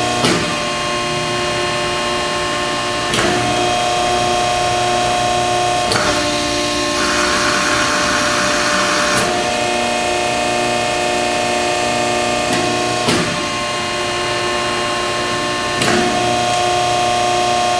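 Hydraulic CNC press brake running: a steady hydraulic pump whine whose tone shifts with a click every three seconds or so. A hiss rises for about two seconds near the middle.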